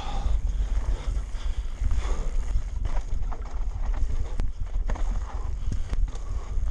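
Mountain bike riding down a steep dirt trail: steady wind rumble on the bike-mounted camera's microphone, with the bike rattling and giving several sharp knocks over bumps.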